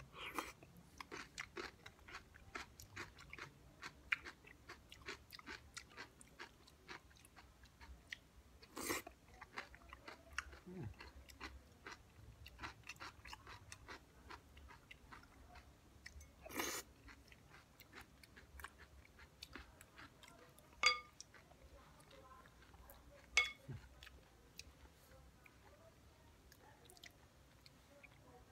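Close-up crunchy chewing of raw cucumber, tomato, onion and cheese salad: many crisp crunches and wet mouth sounds. A few louder sharp knocks stand out, two of them, about two-thirds of the way through, ringing briefly like a spoon striking a glass bowl.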